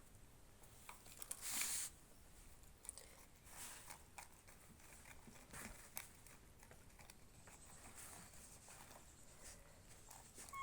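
Faint scattered rustling and light taps from cats moving about, with one louder short rustle about a second and a half in.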